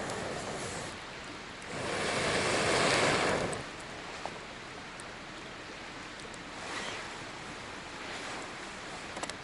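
Wind blowing outdoors in gusts, a rushing noise that swells strongly about two seconds in and fades, then rises again more weakly twice, with a few faint clicks.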